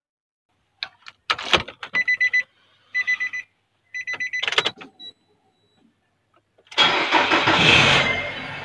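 Car sound effects: a few clicks, then three short buzzy beeps about a second apart, then a car engine starting and running loudly for the last couple of seconds.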